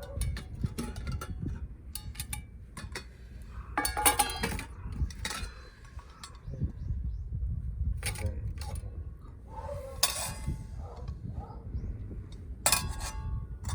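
Metal cookware clinking and knocking as it is handled, several separate knocks with a short ring. Steady wind rumble on the microphone runs underneath.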